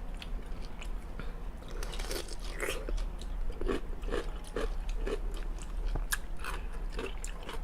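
Someone biting into and chewing a crisp dill pickle: a string of irregular crunches.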